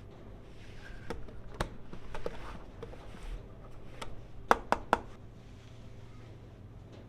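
Sharp plastic clicks and taps from hands handling a toy microwave and plastic toy food, with a quick run of three louder clicks about two-thirds of the way through.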